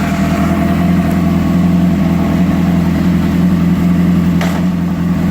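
2003 Honda CBR600RR's inline-four engine idling steadily, just after being started.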